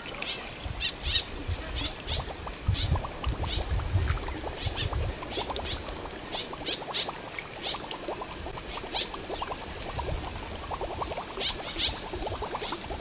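Short high chirps of birds calling repeatedly, over an uneven low wind rumble on the microphone.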